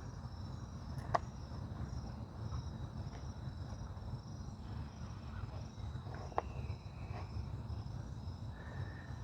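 Quiet workshop room tone: a steady low hum with a faint, evenly repeating cricket chirp throughout, and two light taps about a second in and again near six and a half seconds.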